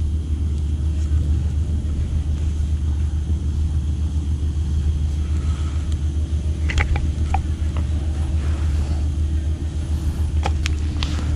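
Steady low rumble of wind and tyres heard on a camera riding along on a mountain bike. A few sharp clicks and rattles come about two-thirds of the way through and again near the end.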